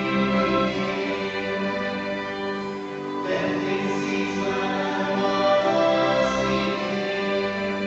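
Live band and symphony orchestra playing a slow ballad: long-held string chords that change every few seconds, with a sung melody over them.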